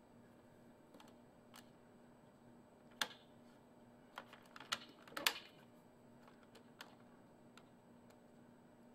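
Buttons on an Epson Artisan 700 inkjet printer's control panel pressed by a finger: a scattered series of sharp plastic clicks and taps, irregularly spaced, with a small cluster a little past halfway.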